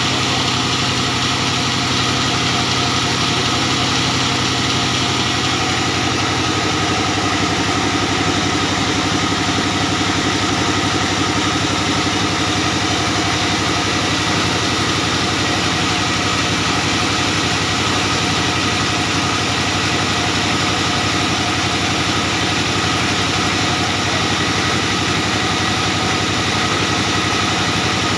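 Diesel engine driving a band sawmill, running steadily. Its low tone shifts about six seconds in.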